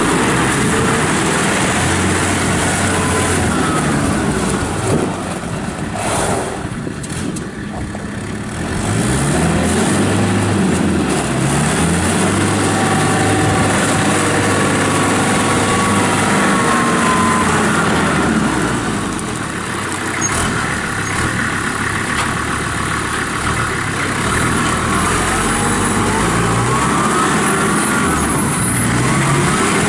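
Kubota M5400 tractor's five-cylinder diesel engine running, its engine speed rising and falling several times, with a short quieter stretch about a quarter of the way in.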